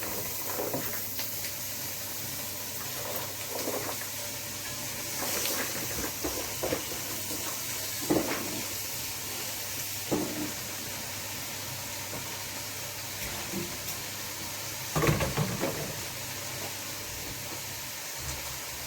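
A pot in which onion and seasoning are frying gives a steady faint sizzle while callaloo greens go in, with scattered knocks and clatters of utensils against the pot. The loudest clatter comes about 15 seconds in.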